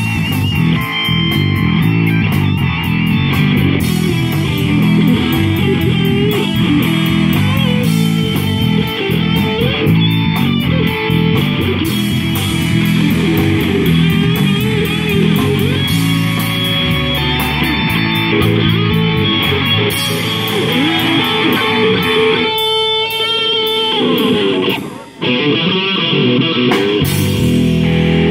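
Live amateur rock band playing: electric guitars, bass guitar and drums. The loudness dips sharply for a moment about three seconds before the end.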